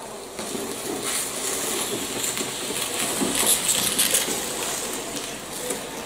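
Cardboard shipping box being handled and set down on a tabletop, making a continuous rustling scrape with small crackles that builds up and is loudest a little past the middle.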